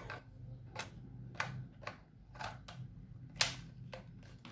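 A string of light, irregular clicks and taps from handling a compact film camera, about eight in all, with the sharpest about three and a half seconds in.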